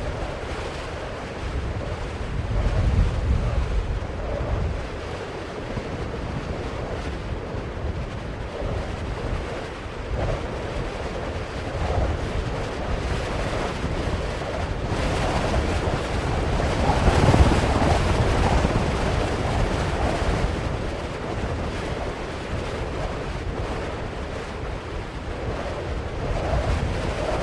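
Continuous rushing noise that swells and eases, with a gusty low rumble underneath; it grows loudest a little past halfway.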